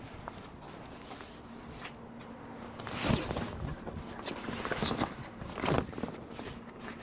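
A heavy 600D fabric grill cover rustling and swishing as it is pulled down over a table saw, with shuffling footsteps on concrete. The loudest swish comes about three seconds in, with two more near the end.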